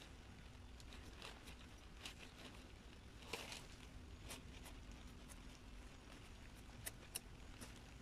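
Faint scraping and rustling of gloved hands and a small trowel working loose soil, with the crinkle of a rain jacket. There is a longer rustle about three seconds in and two sharp ticks near the end.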